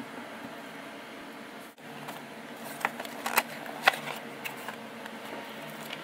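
A handful of light, sharp clicks and taps in quick succession about three to five seconds in, over steady room hum and hiss.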